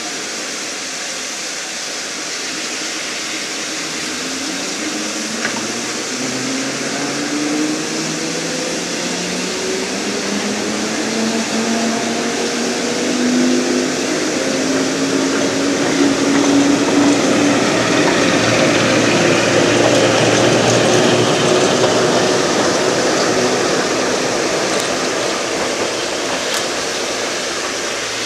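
Train gathering speed: a drone rising steadily in pitch for about ten seconds over a broad rushing noise that grows louder, then holds steady.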